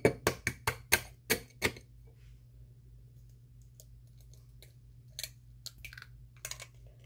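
An egg tapped again and again against the edge of a mixing bowl to crack it: a quick run of about seven sharp taps in the first two seconds, then a few faint clicks of shell as it is pulled open.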